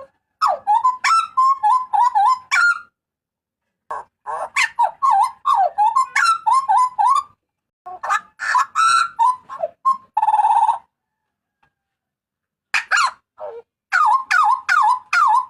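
Jagal papua (butcherbird) calling loudly: bursts of quick, yelping whistled notes mixed with sharp clicks, in phrases of two to three seconds with short pauses between them. A single harsh buzzy note comes about ten seconds in, followed by a pause of about two seconds before the calling starts again.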